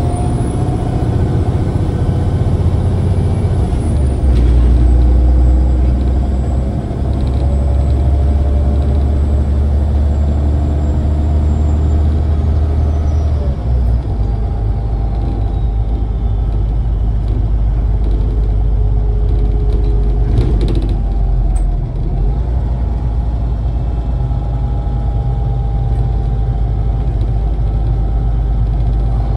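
MAZ-203 city bus heard from inside the cabin while driving: a steady low engine rumble with transmission whines that rise and fall with speed. A high whine glides downward over the first half, the rumble changes pitch about halfway through, and there is a short rattle a little past two-thirds of the way in.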